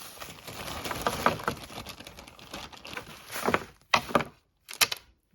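A package being opened by hand: continuous rustling with many small clicks and taps, then a few louder crackles before it stops suddenly.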